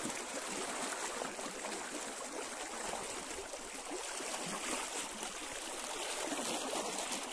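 Swift river current rushing and splashing around the legs of someone wading across it: a steady, even rush of water.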